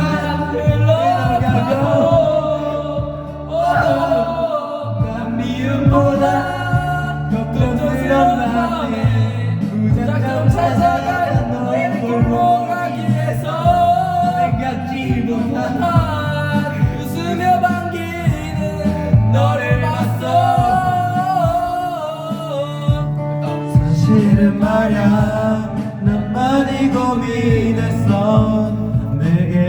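Men singing a Korean pop duet into karaoke microphones over the karaoke machine's backing track.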